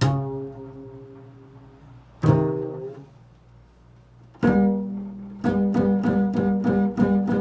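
Improvised music on a plucked string instrument. Single low notes are struck and left to ring and fade, then from about five seconds in comes a fast repeated picking of about five notes a second.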